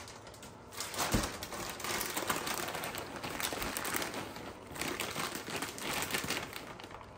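Plastic bag of shredded cheese crinkling and crackling as it is handled and opened, with a single thump about a second in.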